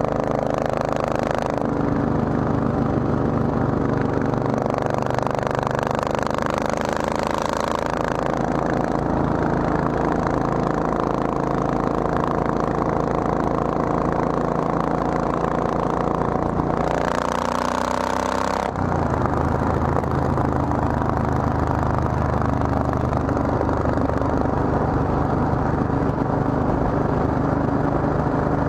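Triumph Thunderbird motorcycle engine running under way, heard from on the bike with rushing wind noise. About two-thirds of the way through the engine note climbs, then drops abruptly as the bike shifts gear, and it settles into a steady lower note.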